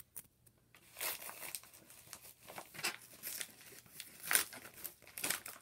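Package wrapping being handled and pulled open by hand: irregular crinkling and rustling, loudest about four seconds in.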